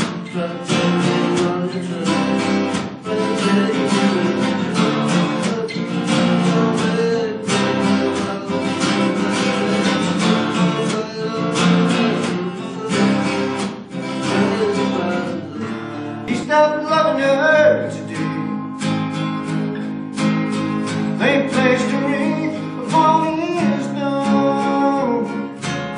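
Acoustic guitars played together live: strummed and picked chords with a plucked lead line. Past the middle, a wavering melody line with bent notes stands out above the chords.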